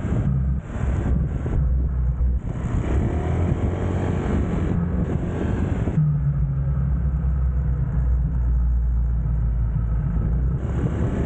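Motor scooter's small engine running steadily while riding, with wind rushing over the microphone in stretches.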